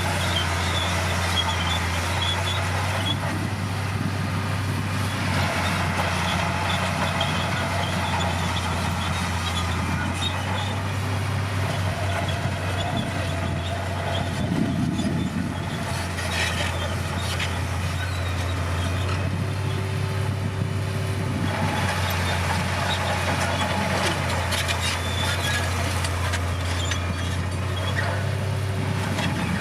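Komatsu D60P crawler bulldozer's diesel engine running steadily at work, with intermittent metallic clatter.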